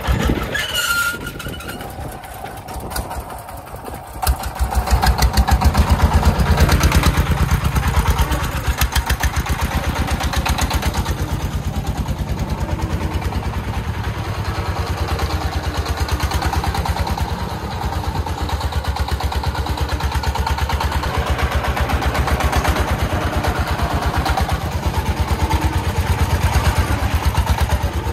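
Single-cylinder diesel engine of a loaded công nông farm truck chugging with an even beat. About four seconds in it gets louder as the truck pulls away, then keeps running steadily under load.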